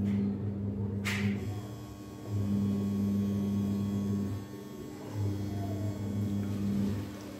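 A low hum that switches on and off in stretches of about two seconds. About a second in comes a single clink as a piece of carrot drops into the steel mixer jar.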